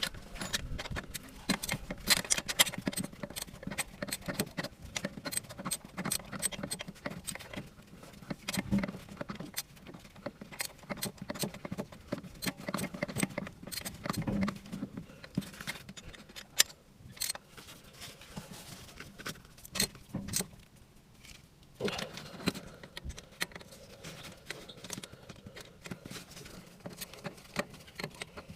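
Metal hand tools clinking and clicking on bolts and engine metal: a busy run of irregular sharp ticks and light knocks as the turbo's fixings are worked.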